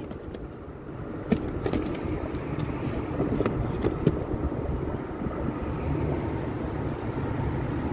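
Steady low rumbling noise, with scattered light clicks and taps over it.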